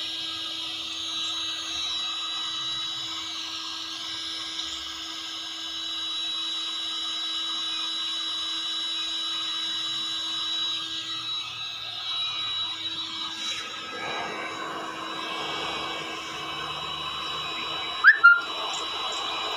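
Electric heat gun running steadily, its fan blowing hot air with a high whine while it melts a plastic welding rod into a crack in a plastic tub. About 14 s in the airflow sound shifts and spreads out, and two sharp, loud sounds come in quick succession near the end.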